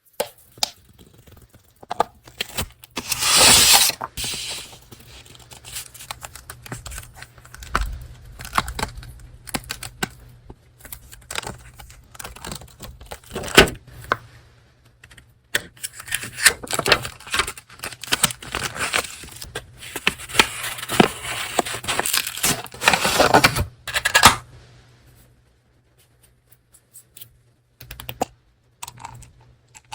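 Paper and packaging handled close to the microphone: rustling, crinkling and tearing of paper, with many small clicks and taps. There is a loud burst of rustling a few seconds in and a longer busy stretch past the middle, then only a few light taps near the end.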